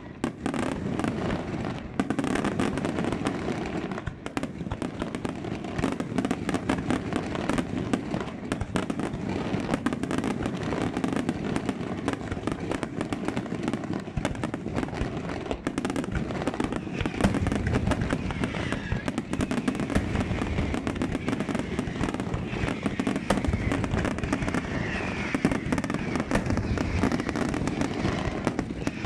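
Fireworks display: a dense, unbroken barrage of bangs and crackles.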